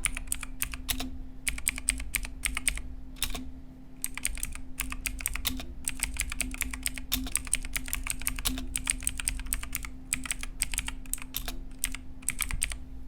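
Typing on a Zet Blade full-size mechanical keyboard with clicky Kailh Blue switches in an aluminium plate: fast runs of sharp key clicks with a brief pause about four seconds in. The owner says the plate gives an unpleasant metallic ring while typing.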